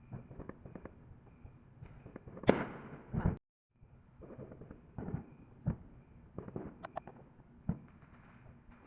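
Neighbourhood 4th of July fireworks going off: a string of bangs and cracks at irregular intervals, the loudest about two and a half seconds in, with a brief drop to silence a little past three seconds.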